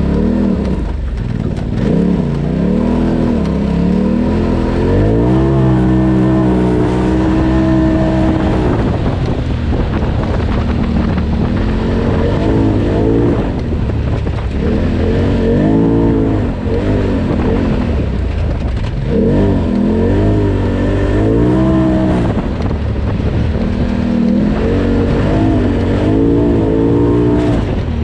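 Polaris RZR Turbo side-by-side's turbocharged engine revving up and down again and again as it is driven hard. The pitch climbs and drops in surges of a couple of seconds each, with one longer held pitch in the first third.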